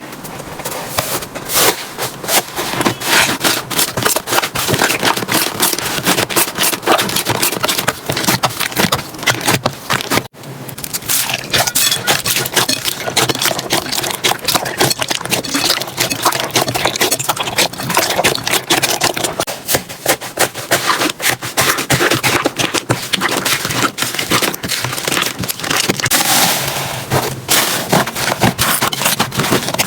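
Slime being squished, pressed and stretched by hands, a dense, continuous crackling and popping with a brief break about a third of the way through.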